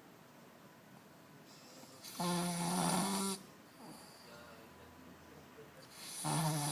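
A bulldog snoring: two loud snores about four seconds apart, each about a second long, with a faint breath between them.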